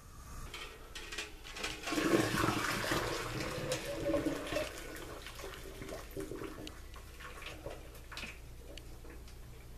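Hot water poured out of a saucepan into a stainless steel sink drain, draining boiled eggs. The pour gushes hardest in the first half, then thins to a trickle.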